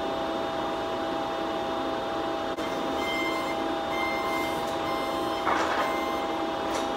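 Forklift warning beeper sounding short beeps about once a second, starting about a third of the way in, over the steady hum of factory machinery. A brief louder rush of noise comes about five and a half seconds in.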